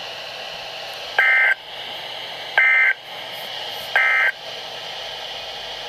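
Three short, identical bursts of EAS SAME digital data tones from NOAA Weather Radio, about a second and a half apart, over steady radio hiss. This is the end-of-message code that closes the warning broadcast.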